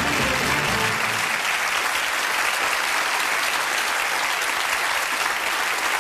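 Studio audience applauding steadily, with music fading out about a second in.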